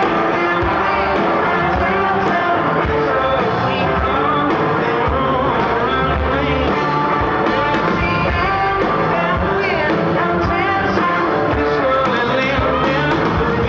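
Live rock band playing loud, with electric guitar and a steady drum beat, heard from within the audience.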